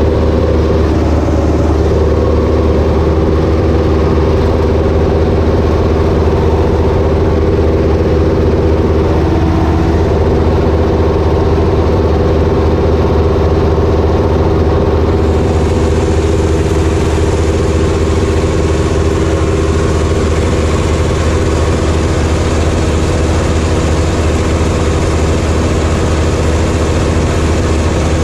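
Ursus tractor's diesel engine running steadily, heard from inside the tractor's cab.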